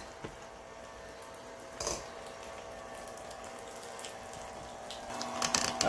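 Electric hand mixer running steadily, its beaters churning soft blocks of cream cheese in a stainless steel bowl, with a steady motor whine. One brief, louder knock about two seconds in.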